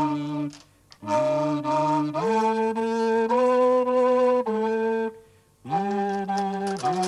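Instrumental background music: held notes that slide up into pitch, with two brief breaks, the first about half a second in and the second about five seconds in.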